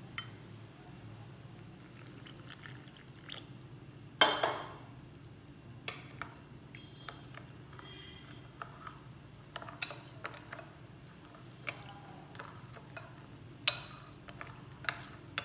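Metal spoon stirring corn flour, sugar and water in a ceramic bowl: scattered light clinks and scrapes of the spoon against the bowl, the loudest about four seconds in.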